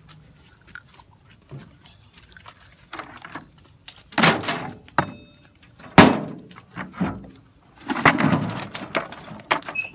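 A net fish trap being handled with its catch: a handful of loud, irregular thumps and knocks, starting about four seconds in.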